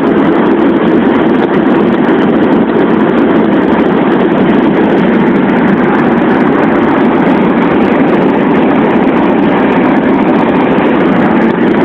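Steady rumble of road, engine and wind noise inside a car cruising at highway speed, about 90 km/h.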